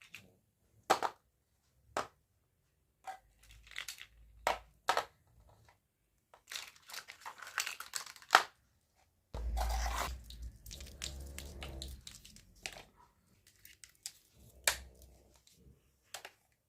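Toy packaging being opened by hand: plastic and paper crinkling and tearing, in two longer rustling stretches, with sharp clicks and snaps of plastic scattered between.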